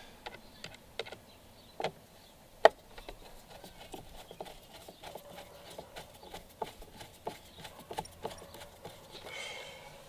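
Irregular light clicks and taps of a screwdriver and small hardware being worked inside an RC boat's plastic radio box, with two sharper knocks about two seconds in.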